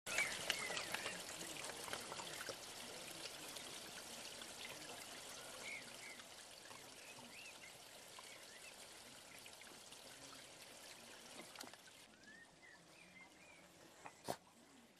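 Small garden-pond fountain splashing and trickling steadily. The splashing drops away abruptly about twelve seconds in, leaving a quiet background, and a single sharp click comes near the end.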